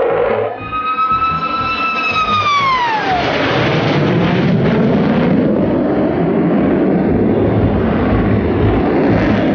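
Jet fighter fly-by: a high engine whine that holds, then falls steeply in pitch about two to three seconds in as the jet passes, giving way to a steady jet roar.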